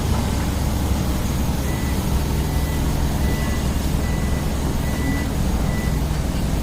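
Heavy bulldozer's diesel engine running steadily. A high reverse-alarm beep repeats several times from about two seconds in.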